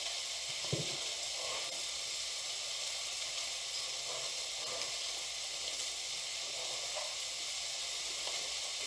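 Potatoes, pancetta, onions and mushrooms frying in a pan over a gas flame: a steady, even sizzle.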